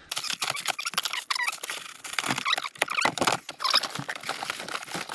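Quick, irregular clicks, rattles and rustling of small plumbing parts and packaging being rummaged through and handled.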